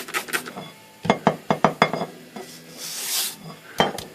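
Clattering and clinking of a metal typewriter trim plate being handled while it is rinsed, with a quick run of about six sharp knocks about a second in. A brief hiss follows about halfway through, then two more knocks near the end.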